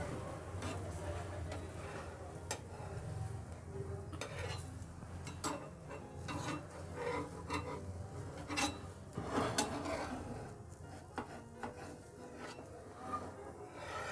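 Metal spatula scraping and tapping against an iron tawa as a besan chilla is worked loose from the pan, in irregular clicks and scrapes, over a low steady hum.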